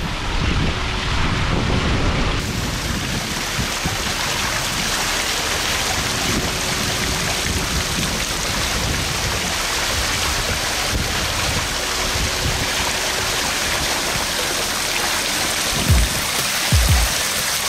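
Water from a public fountain splashing and rushing steadily, with two short low thumps near the end.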